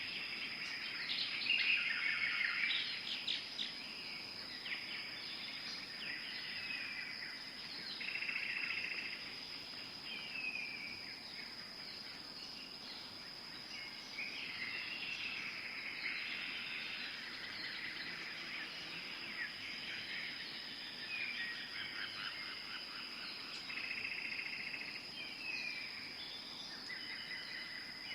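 Birds chirping and calling in short phrases, some as quick falling notes, over a steady high-pitched insect drone.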